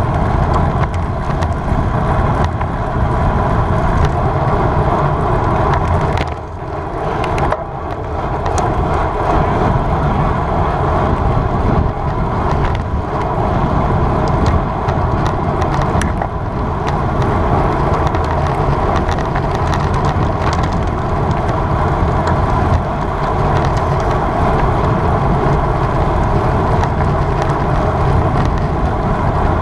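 Wind rushing over an on-bike camera microphone, with road and tyre noise from a road bike at race speed. The noise dips briefly about six seconds in.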